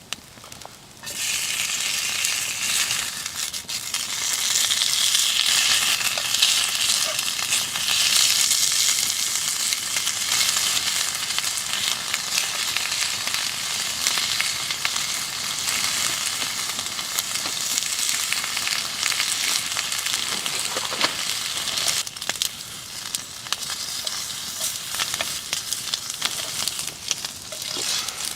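Food frying: a steady sizzle that starts abruptly about a second in, with scattered crackles.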